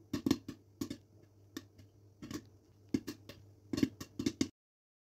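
Popcorn kernels popping in hot oil in a pan covered with a glass lid, late in the batch: scattered, irregular pops, each with a short ring, over a low steady hum. The sound stops abruptly near the end.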